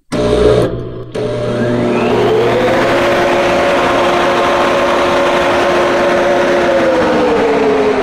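Grain bin aeration fan starting up as power reaches it: a sudden loud surge, then its tones rise as the fan spins up over the first couple of seconds, settling into a steady loud whir and hum. The pitch sags slightly near the end.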